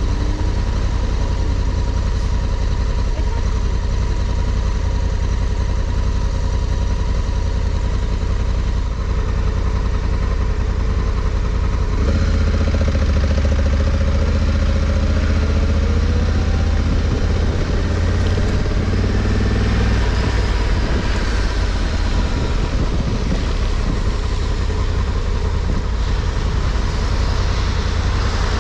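Honda Africa Twin CRF1100L's parallel-twin engine running as the motorcycle rides along a wet road, under a heavy low rumble of wind on the microphone and tyre hiss. The engine pitch rises and falls around the middle as the bike speeds up and slows.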